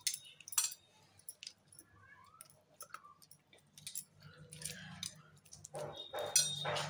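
Scattered light metallic clinks and jingles, with rustling that grows denser in the second half, over a faint steady low hum.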